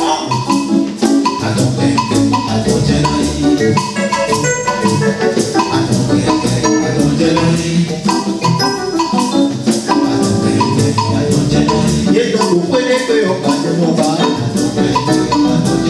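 Music with a steady percussion beat and bright pitched melodic instruments.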